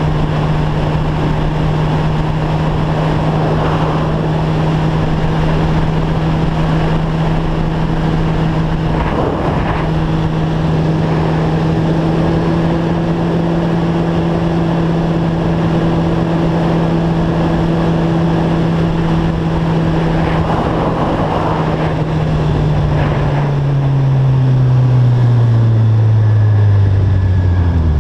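Car engine and tyre-and-road noise heard from inside the cabin while cruising at a steady speed; the engine's steady hum drops in pitch over the last few seconds as the car slows.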